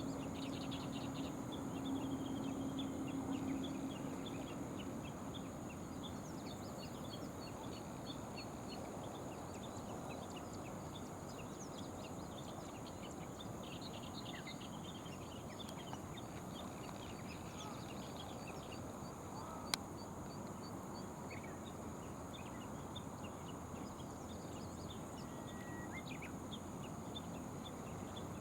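Outdoor riverside ambience: a steady wash of background noise with many short, high bird chirps scattered throughout. A low hum fades out over the first few seconds, and there is a single sharp click about 20 seconds in.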